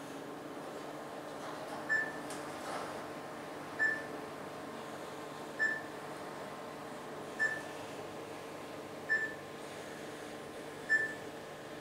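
Mitsubishi traction elevator car travelling, a steady hum with a short, high electronic beep about every two seconds, six beeps in all.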